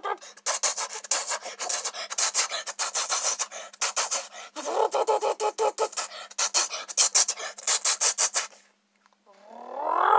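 A person imitating a Mitsubishi Lancer Evolution's engine with their mouth: a fast, raspy sputter of breath pulses. It breaks off briefly near the end, then a voiced note rises in pitch like a rev.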